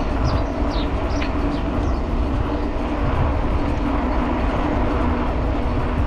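Wind buffeting an action camera's microphone, with the rolling noise of a bicycle on the road and a steady low hum underneath. A few short, high, falling chirps sound in the first second or so.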